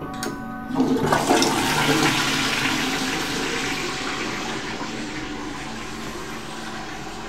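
Toilet flushing: a short click, then about a second in a loud rush of water that slowly dies away.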